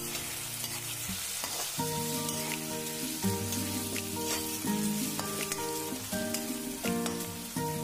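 Onion, potato, green peas and peanuts frying in sunflower oil in a pan, with a steady sizzle. Instrumental background music with held notes plays underneath.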